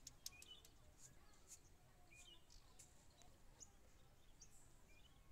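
Near silence, with faint, scattered bird chirps every second or so.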